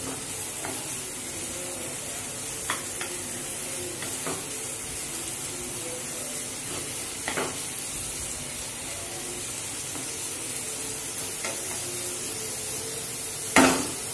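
Chopped onion sizzling in hot mustard oil and ghee in a kadai as it is stirred, with a few light spatula scrapes and taps against the pan. One louder knock comes near the end.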